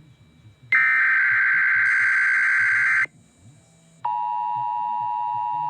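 Emergency Alert System SAME header: a burst of digital data tones lasting about two seconds, then a short gap. About four seconds in, a steady single-pitch attention tone starts, the NOAA Weather Radio 1050 Hz alert tone that comes before a weather alert.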